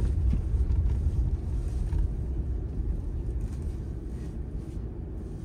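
Steady low rumble of a truck on the move, engine and road noise, easing off a little toward the end.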